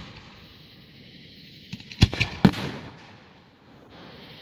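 Aerial fireworks display: about two seconds in, a couple of small pops and then three loud bangs in quick succession, each followed by a short echo trailing off.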